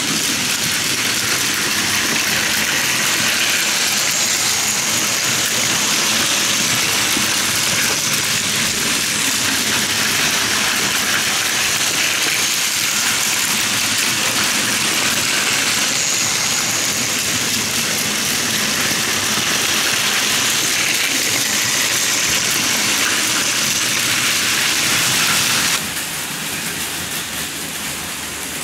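Several battery-powered Plarail Advance toy trains running together on plastic track: a steady whir of small motors and wheels. About 26 s in it cuts to a quieter, thinner sound of a KATO N-gauge model train running.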